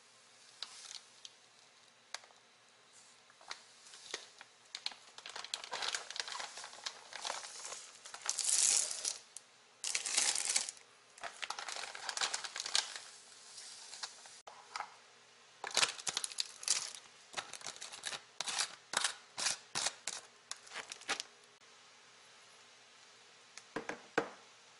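Granulated sugar poured from a plastic bag into plastic jars of sliced quince, the bag crinkling and the sugar hissing in two longer stretches. Then red plastic screw lids are put on and turned, giving a quick run of sharp clicks and a couple of knocks near the end.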